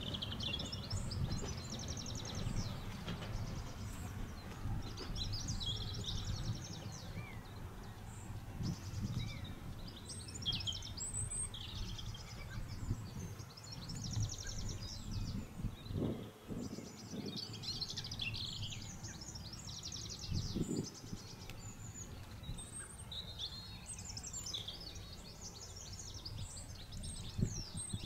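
Songbirds singing repeatedly in short, quick trills over a low, steady rumble.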